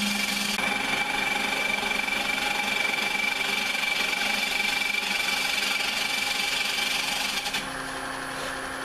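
Half-inch bowl gouge taking a light pull cut across the foot of a spinning walnut bowl on a Powermatic 3520 wood lathe: a steady scraping hiss of shavings coming off, over the steady hum of the running machinery. The cut stops about seven and a half seconds in, leaving only the machine hum.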